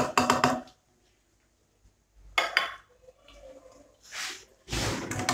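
Metal tongs clinking and scraping against a frying pan in a few short spells, with hot oil sizzling, as fried chicken nuggets are lifted out of the oil.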